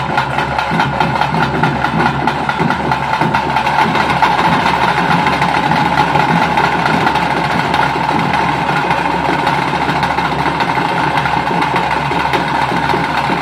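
Live ritual music for a Bhuta Kola dance, played without a break: a steady held tone over fast, dense drumming.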